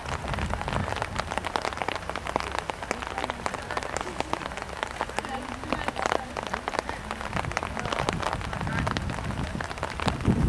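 Rain pattering: a dense, irregular run of small taps.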